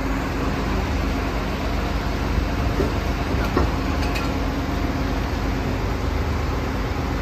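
Water well drilling rig's engine running steadily with a low, even hum, with a few light clicks about halfway through.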